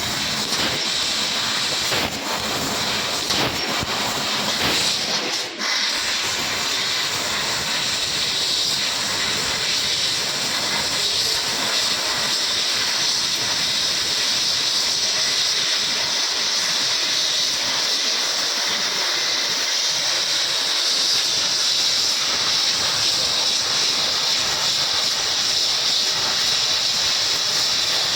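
RK 3015 fiber laser cutting machine cutting stainless steel sheet: a loud, steady hiss of assist gas jetting through the cutting head. It is uneven for the first few seconds, with a brief drop about five seconds in, then holds steady.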